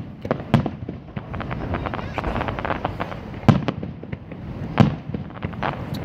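Aerial fireworks bursting in quick succession, a dense crackle of many small pops with three louder bangs, about half a second, three and a half and nearly five seconds in.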